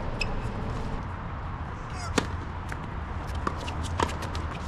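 A few sharp knocks of a tennis ball being struck and bouncing during play, the loudest about two seconds in, over a steady low hum.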